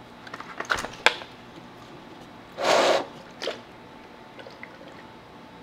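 Hard plastic car-headlight parts being handled: a few light clicks, then one brief louder rustle about two and a half seconds in, with smaller rustles and ticks after.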